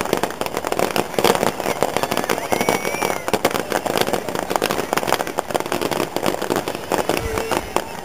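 Fireworks fired from low-level launch points crackling and popping in a rapid, dense stream of small bangs.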